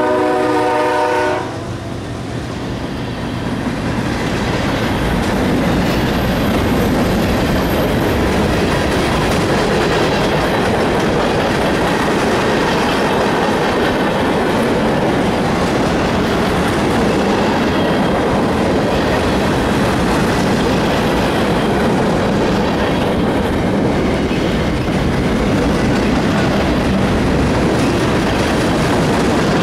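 Union Pacific freight train passing close by. The locomotive horn sounds several tones at once and cuts off about a second and a half in, then the freight cars' wheels roll steadily over the rails.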